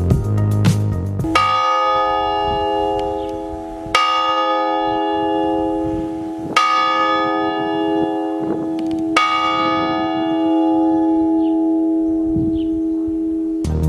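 A single church tower bell struck four times, about two and a half seconds apart, each stroke ringing on into the next. Background music fades out in the first second and a half.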